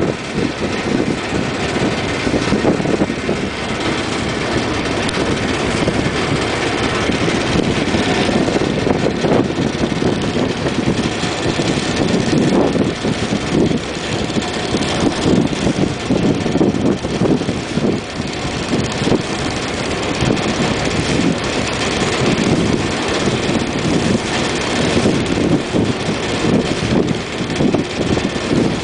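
A river ferry's engine running steadily while the boat is under way, a loud continuous drone without change.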